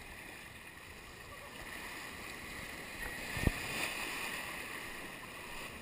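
Shallow seawater lapping and sloshing around a camera held at the waterline, swelling a couple of seconds in, with one brief low thump about three and a half seconds in.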